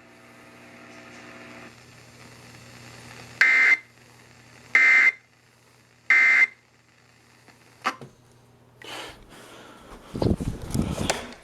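Three short bursts of Emergency Alert System digital data tones from a weather radio, each about half a second long and spaced about a second and a half apart: the end-of-message code that closes a warning. Faint hum underneath; near the end a louder low, rumbling noise starts.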